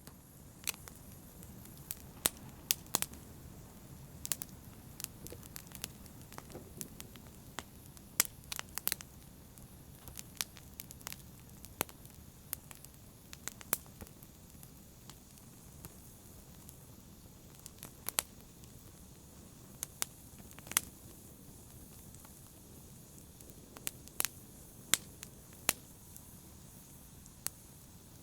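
Wood fire burning with a steady low hiss and frequent sharp, irregular crackles and pops, a few of them much louder than the rest.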